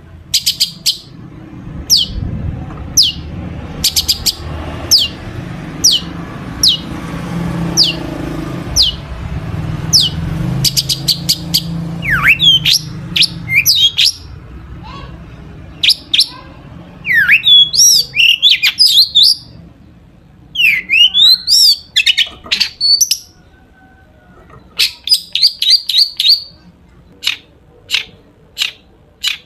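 Long-tailed shrike (cendet) singing. First comes a series of sharp, high notes sweeping downward, about one a second, over a low rumble. Then varied, tangled phrases of the mimicked songs of other birds, and near the end quick runs of short notes.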